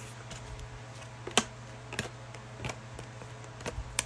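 A handful of short, light clicks and taps spaced irregularly, about five in four seconds, over a faint steady low hum.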